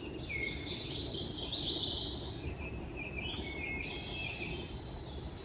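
Several songbirds singing in overlapping quick, high trills and chirps, busiest in the first two seconds, over a steady low rush of breeze on the microphone.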